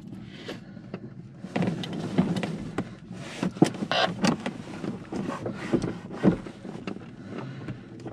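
Clicks, knocks and rustling of handling inside a glider cockpit, over a steady low rumble.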